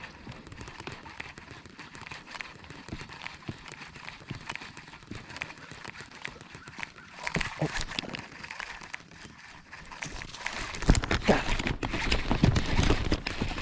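Hobie Mirage pedal drive of a kayak being pedalled, giving a steady run of rhythmic knocks from the pedals and fins. A louder low rumble comes in about eleven seconds in.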